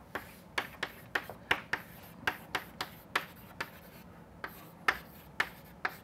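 Chalk writing on a chalkboard: a string of short, sharp taps and scratches as the letters are put down, irregular at about two or three a second, with a brief pause about four seconds in.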